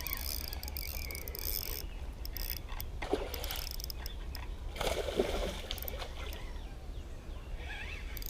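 Hooked spotted bass splashing at the water's surface twice during the fight, about three and five seconds in, over a steady low rumble.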